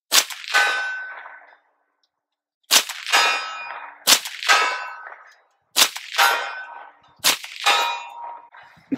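Five rifle shots from an AR-15 chambered in 7.62x39, firing steel-case ammunition, spaced one and a half to two and a half seconds apart. Each shot is followed about half a second later by a metallic clang that rings out for about a second, typical of a bullet striking a steel target. All five rounds go off with the enhanced firing pin, with no light primer strike.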